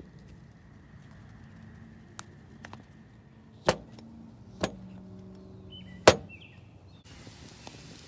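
Three sharp knocks, about a second apart, with the last one the loudest.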